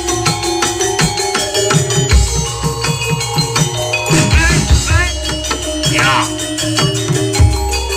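Javanese gamelan music for a kuda kepang (jaranan) troupe: a steady drum beat under ringing metallophone tones, with a short wavering high melodic line in the middle.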